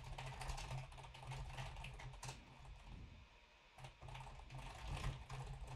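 Typing on a computer keyboard: a quick, uneven run of keystrokes, stopping briefly a little past three seconds in, then going on.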